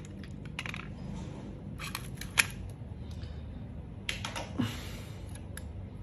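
Light metallic clicks and clinks of Zippo lighter cases being handled: one is set down, and others are picked up from a metal tray of lighters. The clicks come in small groups about half a second, two seconds and four seconds in, over a low steady hum.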